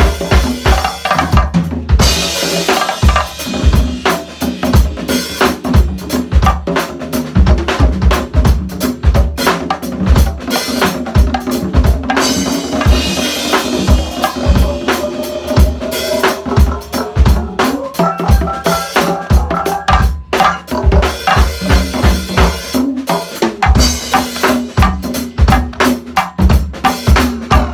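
Congas played fast with both hands in a go-go groove, over a drum kit's bass drum, snare and cymbals, with dense, continuous hits.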